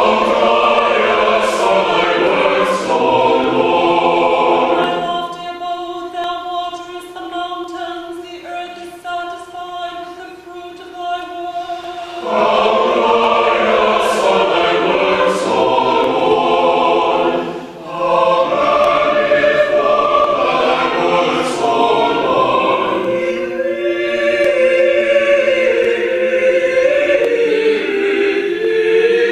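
Church choir singing a slow liturgical chant in harmony, with long held notes. It grows softer for several seconds in the middle and swells again about twelve seconds in.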